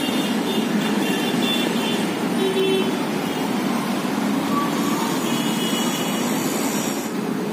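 Steady road traffic noise from a busy city street, with a few brief faint high tones.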